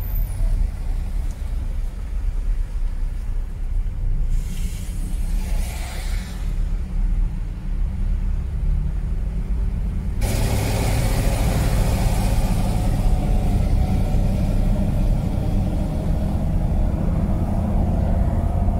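Car cabin road noise while driving on a wet, flooded road: a steady low rumble of engine and tyres. About ten seconds in a hiss comes up suddenly and stays.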